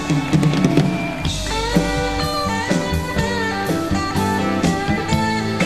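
Rock band playing an instrumental passage: bending electric guitar lines over bass and drums, with no vocals.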